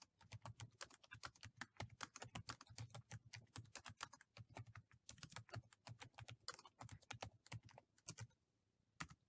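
Faint, fast typing on a computer keyboard: a steady run of quick keystrokes that stops about eight seconds in, followed by a single click near the end.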